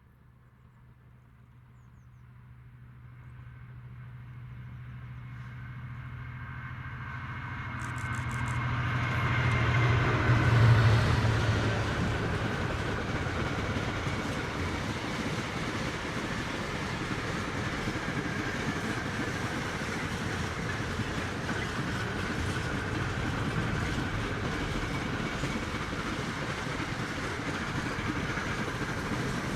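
A train approaching on the main line and passing at speed. The locomotive's low steady tone grows from faint to its loudest about ten seconds in, then the carriages or wagons run by in a long, even rumble with a clickety-clack of wheels on rail joints.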